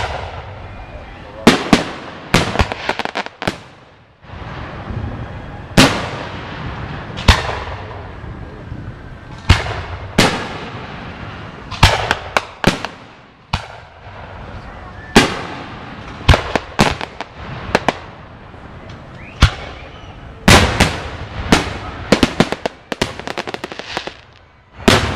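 Aerial fireworks bursting overhead in a long series of sharp bangs, often in quick clusters of two to four, with short gaps between clusters.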